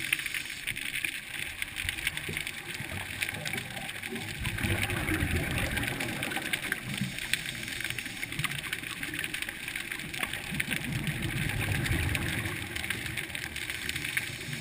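Underwater scuba sound: a diver's exhaled bubbles rumble and gurgle in two long swells about six seconds apart, over a steady crackling hiss.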